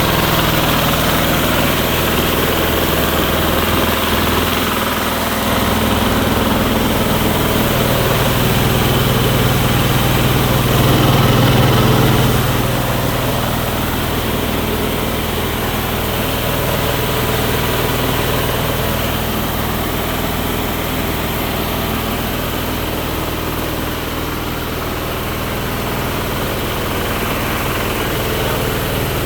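A 1000 kg-per-hour mini rice milling machine running steadily: a low, even machine hum under a continuous rushing noise, swelling slightly about ten seconds in.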